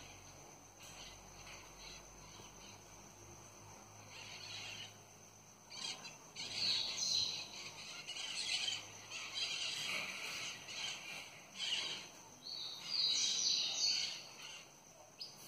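Birds chirping in irregular bursts, growing busier about halfway through.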